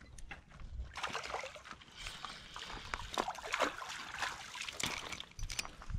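A small white bass splashing and thrashing at the water's surface as it is reeled to the bank and landed in a net, with irregular splashes and drips starting about a second in.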